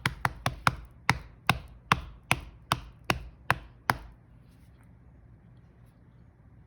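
A hand patting a Siamese cat's belly in a steady beat. The pats come about four a second at first, then settle to about two and a half a second, and stop about four seconds in.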